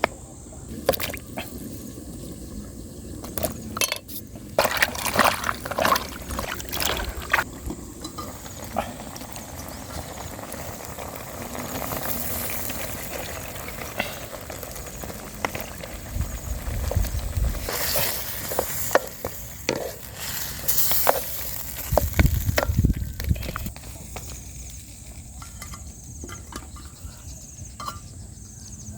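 Liquid splashing and pouring, with many scattered clicks and knocks, in denser clusters about five seconds in and again past the middle.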